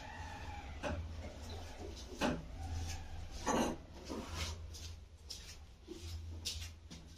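Irregular short scrapes and knocks from a razor being drawn through shaving foam and chest hair and handled between strokes, over a steady low hum.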